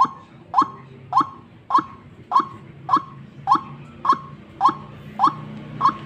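White-breasted waterhen (ruak-ruak) calling, a short note repeated at a steady pace of about one every 0.6 seconds, eleven times.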